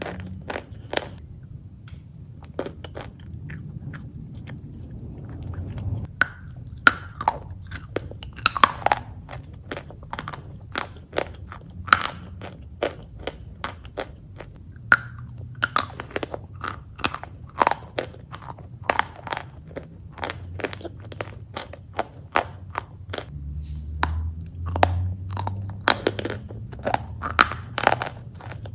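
Close-miked eating of crisp food: a long run of sharp, irregular crunches from biting and chewing, several a second at times.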